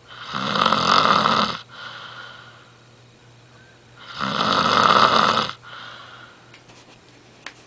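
A sleeping person snoring: two loud snores about four seconds apart, each lasting about a second and a half, with quieter breathing between.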